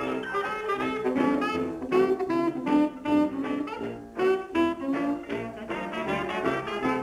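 Lively jazz music with horns playing quick runs of short, separate notes.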